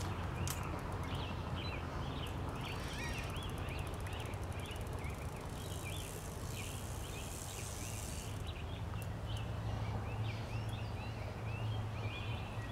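Small birds chirping, many short calls one after another, over a steady low outdoor rumble.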